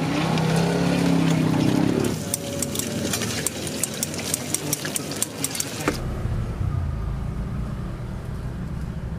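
Wooden pestle grinding peanut sauce in a stone mortar, scraping and knocking against the stone in quick repeated clicks. About six seconds in the knocking stops abruptly, leaving a low steady rumble.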